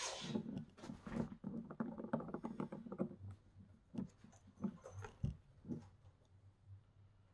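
Faint clicks, taps and rattles of small glass nail polish bottles and plastic nail swatch tips being handled in a clear plastic tray. A quick run of tiny clicks comes in the first half, then single taps until they stop about six seconds in.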